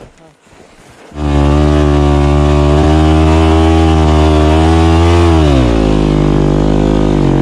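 Yamaha four-stroke single-cylinder enduro motorcycle engine catching about a second in and running at high, steady revs. The revs fall a little past halfway, then it settles to a lower steady run.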